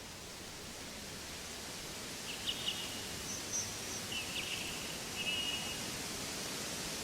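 Forest ambience: a steady, even rushing noise, with a few short high bird chirps between about two and six seconds in.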